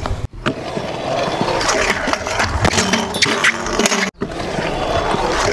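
Stunt scooter wheels rolling on concrete, a continuous rough rumble with scattered sharp clicks and knocks from the deck and wheels. The sound drops out briefly twice.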